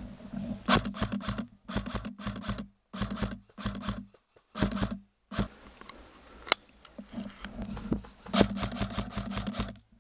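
Footsteps crunching and rustling through dry fallen leaves in uneven bursts with short pauses between them, and one sharp snap about six and a half seconds in.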